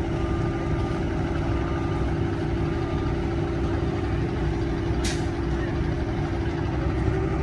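A school bus engine running with a steady low rumble and drone. About five seconds in, one short sharp hiss of air from the air brakes.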